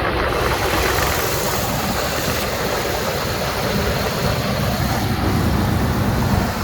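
A 1997 Jeep Grand Cherokee's 5.2 L V8 running at idle, steady, with its deeper hum growing stronger about four seconds in. It is running to check the newly fitted power steering pump bracket and pulley.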